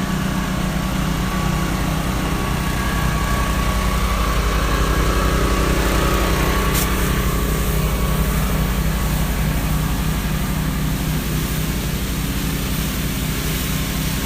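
Gas engine of a pressure-washing rig running steadily at a constant speed, with a steady hiss over it.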